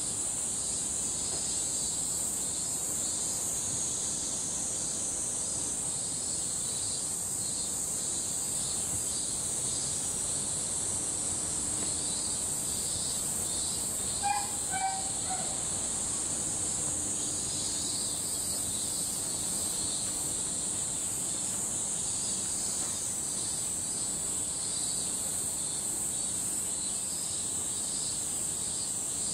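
Chorus of cicadas in the trees: a steady, high-pitched drone with a faint pulsing. About halfway through, a brief pitched call sounds over it.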